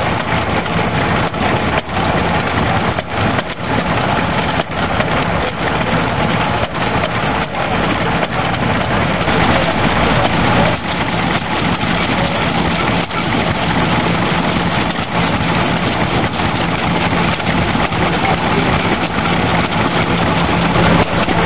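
Several vintage stationary engines running at once, a dense, irregular patter of exhaust beats and mechanical knocks, with a steady low hum rising near the end.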